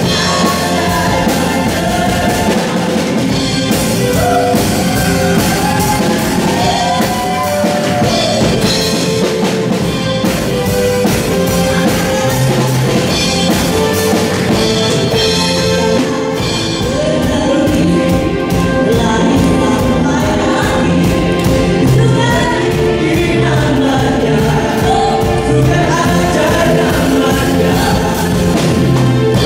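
Live worship song in Malay: a band with drums plays while singers and a hall full of people sing along.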